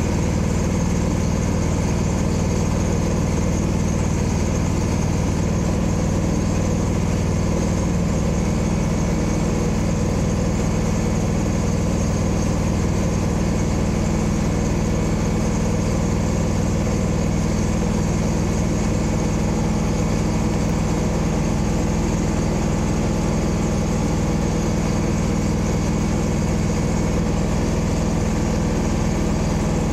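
A vehicle engine running steadily at an even speed, with no change in pitch or level.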